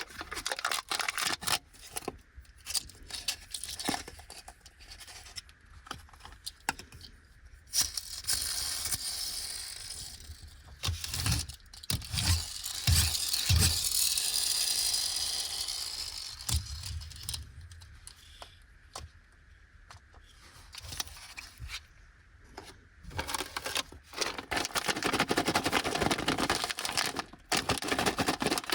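Close handling of plastic packaging: wrappers tearing and crinkling, with small clicks, a long stretch of crinkling in the middle and a few dull knocks about halfway. Near the end, a snack bag of Anpanman caramel corn puffs crinkles busily as it is opened.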